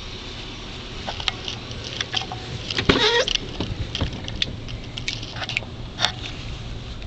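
Handling noise from a handheld camera moved through a vehicle cabin: scattered clicks and rustles, with a louder scrape about three seconds in, over a steady low hum.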